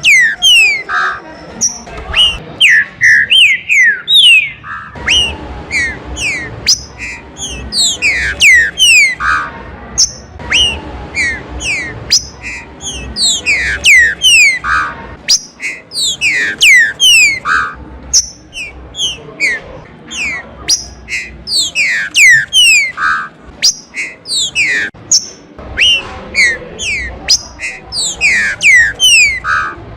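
Green-winged saltators (trinca-ferro) singing: loud phrases of quick downward-sliding whistles, repeated every second or two with short gaps between.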